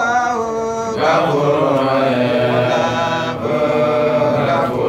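A man's voice chanting in long, drawn-out notes: a short phrase, then a longer held one from about a second in.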